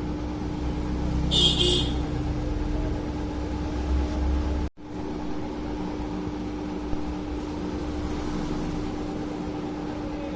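Hot-air rework station's blower running steadily, a whirring rush of air with a constant low hum, with a short higher hiss about a second and a half in.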